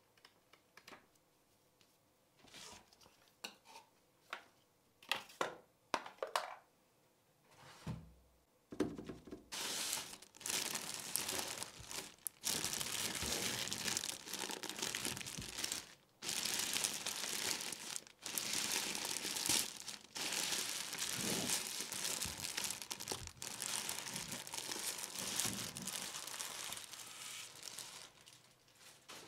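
A few short paper rustles as a small instruction booklet's pages are flipped, then a thin plastic bag crinkling continuously as it is pulled off a boxed device, fading out near the end.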